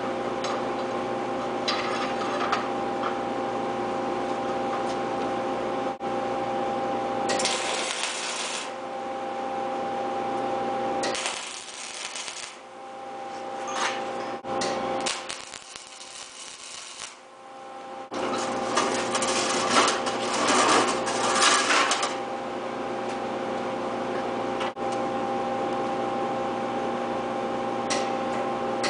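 Electric welder tack-welding a steel frame: the welding machine's steady hum, broken by three spells of crackling arc, the longest about two-thirds of the way through.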